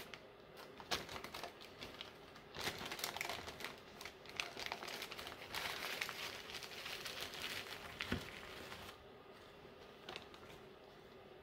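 Paper coffee filters rustling and crinkling as they are peeled apart from a stack and bunched up by hand, with a single sharp tap about eight seconds in. The rustling dies down about nine seconds in.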